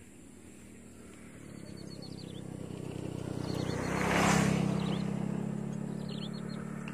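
A motorcycle engine comes closer, growing louder to its loudest about four seconds in and then running on steadily. Birds chirp briefly a few times.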